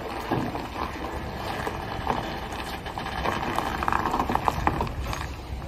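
A heavy diesel truck's engine runs at a low, steady rumble as a bulk cement tanker semi-trailer rolls slowly over loose gravel. The tyres crackle and crunch on the stones, most busily in the second half.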